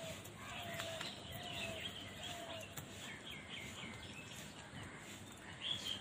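Faint bird chirps, a run of short ones through the first half, then one louder short call near the end, over steady background noise.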